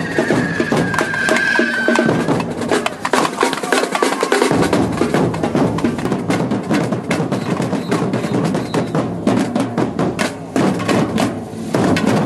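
Hand-held correfoc fireworks hissing and crackling as they throw sparks, over percussion drumming. A high whistle slides down and stops about two seconds in.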